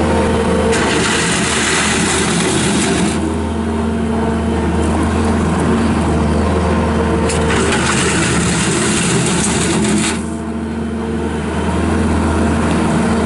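Bobcat S770 skid steer's Kubota V3800 diesel engine running steadily. A hiss joins it twice, from about a second in to about three seconds, and again from about seven to ten seconds.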